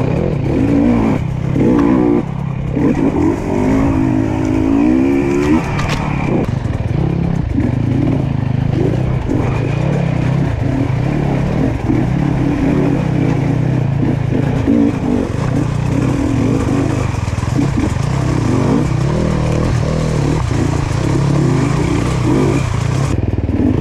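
GasGas enduro motorcycle engine running under load on a rough trail, its revs rising and falling over and over as the throttle is worked.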